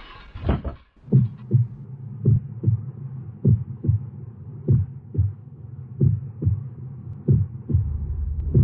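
Heartbeat sound effect: slow paired low thumps, lub-dub, about six beats roughly one and a quarter seconds apart, over a steady low hum. The clatter of a car crash trails off in the first second.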